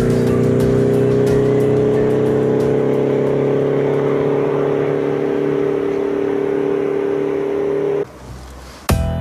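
A loud, steady engine-like drone, its pitch slowly sinking, that cuts off suddenly about eight seconds in. Music with sharp beats starts near the end.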